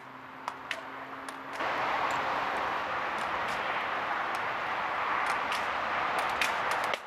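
A steady rushing noise starts abruptly about one and a half seconds in and cuts off suddenly near the end, with sharp clicks scattered through it.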